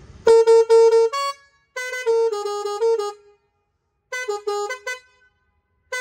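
Musical multi-tone air horn on a Sonalika tractor playing a tune: loud held notes stepping between a few pitches, in three short phrases with breaks in between. Its air tank holds around 200 pounds of pressure, which the owner credits for the loudness.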